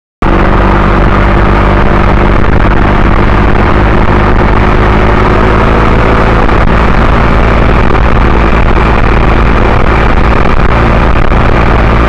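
A moving vehicle's engine drone and loud, steady road and wind noise, heard through an onboard camera's microphone. It cuts in abruptly just after the start and stays level, with no change in engine pitch while cruising.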